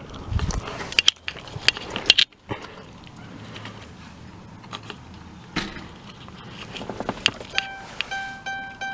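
Sharp clicks and knocks of handling in the driver's doorway, the loudest about a second and two seconds in, then from near the end a car's electronic warning chime dinging over and over, about two or three dings a second, in a 2012 Dodge Charger R/T's cabin.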